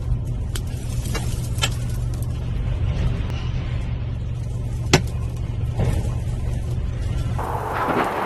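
Low steady rumble of a vehicle, with a few sharp knocks, the loudest about five seconds in. Near the end a louder, even hiss comes in.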